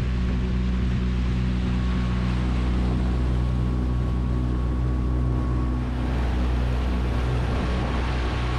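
Mercury EFI FourStroke outboard motor running steadily at speed, pushing the boat along, with the rushing wash of its wake.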